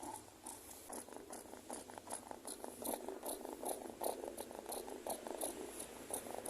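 Domestic cat purring, a fast rough rumble that grows stronger about a second in. The owner takes the purr for the cat wanting to be petted.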